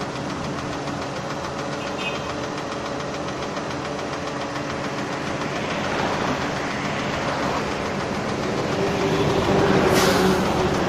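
Boom crane's engine running steadily, growing louder near the end. A single sharp knock sounds about ten seconds in.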